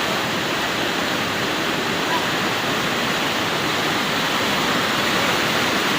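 Waterfall in heavy flow: a steady, loud rush of falling water.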